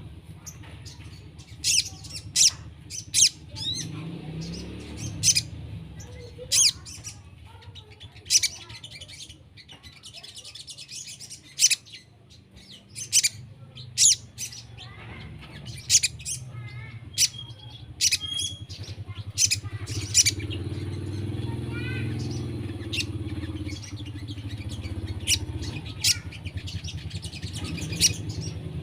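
Songbirds of the kind called sogon calling in sharp, short chirps about once or twice a second, with a few quick rattling trills, over a steady low hum. It is a lure recording meant to set young caged sogon birds singing along.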